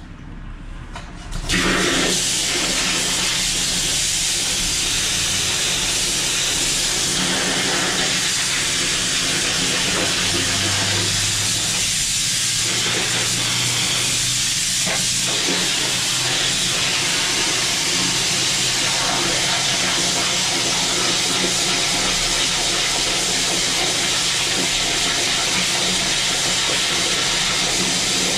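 High-pressure water jetter lance spraying a jet of water down into a sewer manhole, washing paper and waste out of the channel. The spray starts suddenly about a second and a half in and then hisses steadily.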